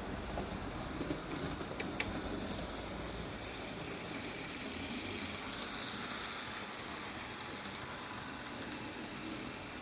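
Hornby Class 29 model diesel locomotive running slowly along the layout track: a steady whirr of its motor and rumble of its wheels on the rails, with two sharp clicks about two seconds in.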